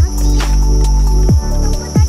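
Background electronic music with a steady beat: deep bass hits that drop in pitch, about one every second and a half, over sustained notes.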